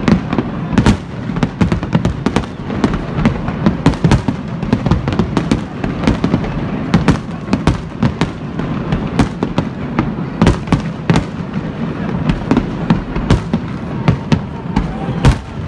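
Fireworks display: aerial shells bursting in quick succession, several sharp bangs a second over a steady rumble and crackle, with no let-up.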